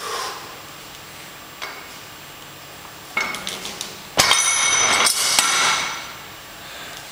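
A plate-loaded Rolling Thunder handle lifting 100 kg of weight plates. Its plates and steel loading pin clink as the lift goes up, then about four seconds in they are dropped onto the platform with a loud metallic clang that rings for nearly two seconds.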